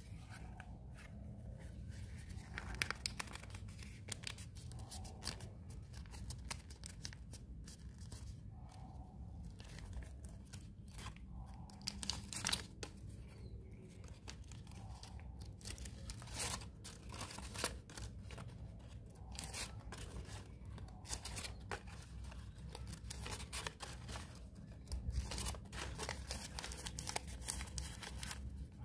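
Pleated paper cupcake liner being flattened and folded by hand: faint, irregular crinkling and rustling of the paper as it is creased.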